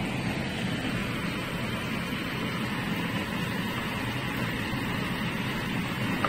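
Tomatoes, fish and coriander sizzling in a wok while a wooden spatula stirs them, over a steady rushing noise.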